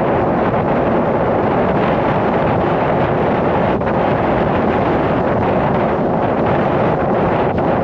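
Strong wind blowing across the microphone: a loud, steady rushing and buffeting with no let-up.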